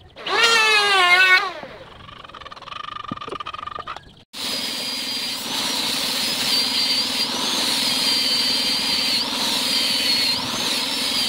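Handheld angle grinder with a sanding disc running steadily and sanding the end of a solid-wood table leg, its high whine wavering as the disc is pressed into the wood. It starts about four seconds in; before it there is a brief loud wavering, falling tone.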